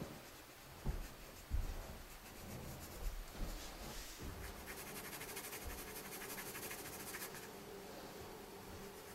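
Pencil scratching on paper in quick, faint shading strokes, with a couple of soft knocks against the drawing surface in the first two seconds.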